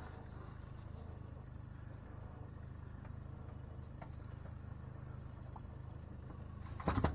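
Boat motor idling, a steady low hum, with a few loud knocks right at the end.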